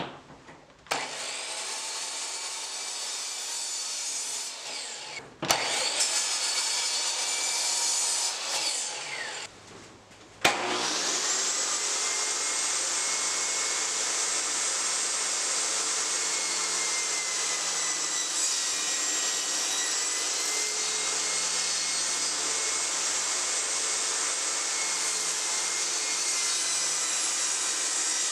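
A Kobalt miter saw running through two short crosscuts in a wooden board, each starting and stopping abruptly, the second ending with the motor winding down. About ten seconds in, a benchtop table saw starts with a rising whine and runs steadily while a board is ripped along its fence.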